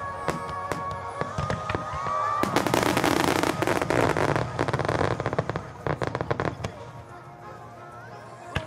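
Aerial firework shells bursting and crackling in a dense volley, over music from loudspeakers. The bursts thicken into a rapid barrage about two and a half seconds in, thin out after about six and a half seconds, and one sharp bang comes near the end.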